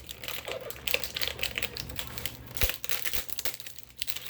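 Packaging crinkling and rustling as a boxed set of ratcheting wrenches is opened, with scattered small clicks and one sharper knock about two and a half seconds in.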